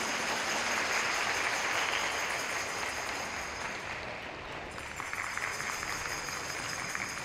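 Audience applauding, a steady clapping that is loudest in the first couple of seconds and eases slightly after.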